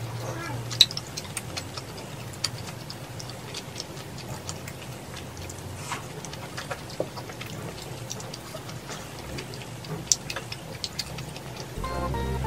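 Mukbang eating sounds: wet mouth clicks from chewing tteokbokki rice cakes and chopsticks tapping a ceramic bowl, as scattered irregular clicks over a low steady hum. Background music starts just before the end.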